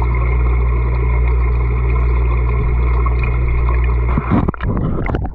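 Steady low hum and water noise as heard by a GoPro camera submerged in a fish pond. About four seconds in, this gives way to irregular knocks and splashes as the camera is handled and lifted out of the water.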